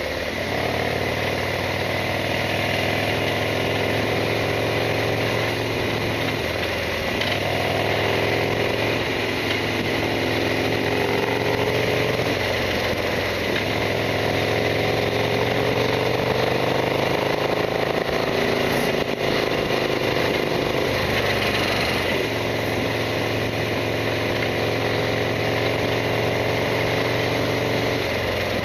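Harley-Davidson Sportster XL1200R's air-cooled V-twin engine running under way, its pitch rising and falling several times as the revs change.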